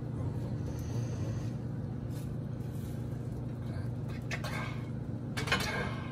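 A silicone spatula scraping and tapping as scrambled eggs are scooped from a frying pan and spread on a tortilla on a plate, with a few short strokes in the second half, over a steady low hum.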